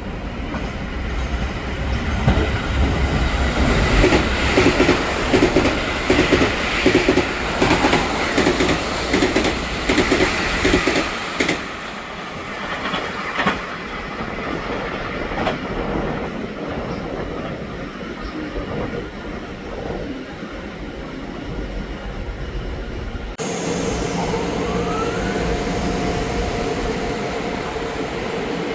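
Taiwan Railway EMU900 commuter train rolling slowly past, its wheels clicking loudly over the fishplated rail joints at about two clicks a second, dying away about halfway through. Near the end the sound changes abruptly to another electric commuter train, an EMU500, running with a steady electric hum and a brief rising whine.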